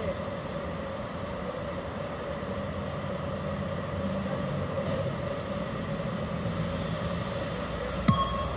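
Steady low rumble of distant city traffic with a faint steady hum. A single sharp knock comes near the end.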